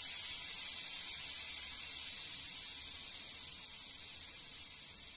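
Compressed air hissing out of a pressurised plastic-bottle injector-flushing canister through the fitting in its cap as the pressure is let down. The hiss is steady and high and fades slowly.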